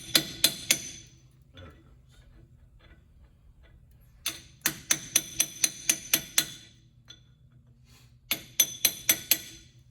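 Quick hammer blows on steel with a bright ring, in three bursts: a few blows at the start, a longer run of about ten from about four seconds in, and about six more near the end. The blows are bending a lock washer's tab over the spindle nut on a truck's front wheel hub.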